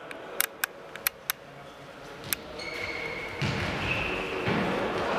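Futsal ball struck and bouncing on a sports hall floor: about five sharp knocks in the first two and a half seconds. Then two short high tones, the first just under three seconds in and the second near four seconds in, over a rising noise of play.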